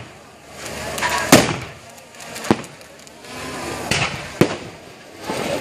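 Paper-blast confetti cannons firing: about five sharp bangs at uneven intervals, with a rushing noise swelling between them.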